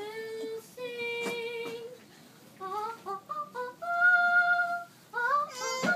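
A young girl singing solo with no accompaniment: long held notes, a short pause about two seconds in, then a high held note and a quick run of rising notes near the end.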